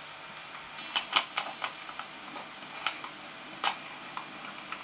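Steady hiss with six short, sharp clicks: a quick run of four starting about a second in, then two more spaced out.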